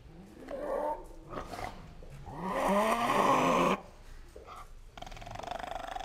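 Spotted hyena growling: a short growl about half a second in, then a longer, louder one from about two and a half seconds in that stops suddenly near four seconds, and another steady growl starting near the end.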